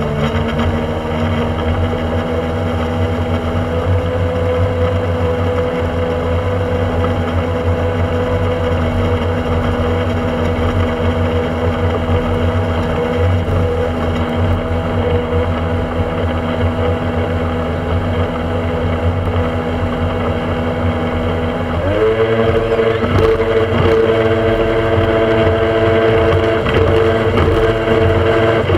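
Small motorboat's engine running steadily at speed. About 22 seconds in the engine note rises in pitch and gets louder as it speeds up, and it starts to drop again right at the end.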